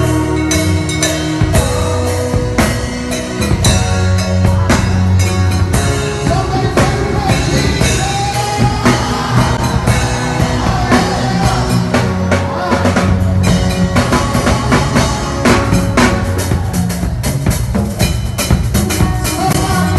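Music: a gospel song with a steady drum-kit beat over bass and held instrument notes.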